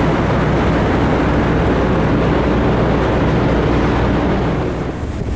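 An engine running steadily at a constant speed, a loud low hum with noise over it, easing off a little near the end.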